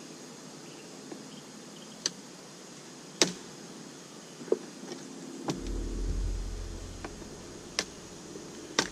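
Honeybees buzzing around an open hive, with a handful of sharp knocks and clicks from the wooden hive boxes and frames being handled. A low rumble comes in about halfway through.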